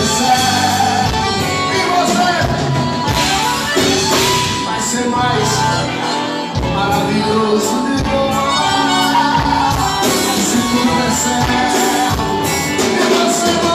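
A live forró band playing: accordion, electric guitar and acoustic guitar with a sung vocal line over a steady beat.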